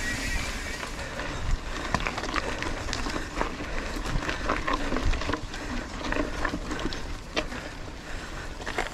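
Mountain bike rolling over a dirt trail: tyres on packed dirt and leaf litter, with the bike rattling in many small irregular clicks and knocks over the bumps.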